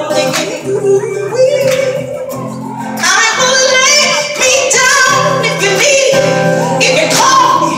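A woman singing live with band accompaniment, her voice sliding through wavering, ornamented runs over sustained keyboard and bass chords; the music swells louder about three seconds in.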